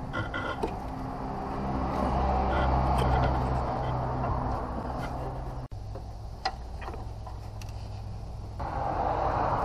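A motor vehicle engine running steadily, with a few light clicks and a momentary dropout a little over halfway through.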